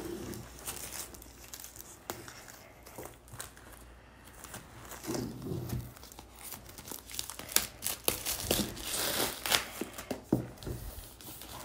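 Plastic shrink wrap being torn open and pulled off a tablet box, crinkling and crackling in irregular bursts that grow busier over the last few seconds.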